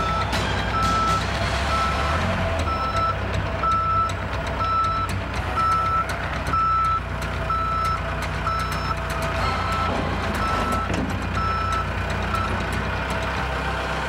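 Heavy construction machine reversing: its backup alarm beeps steadily about once a second over the low running of its diesel engine, the beeping stopping shortly before the end.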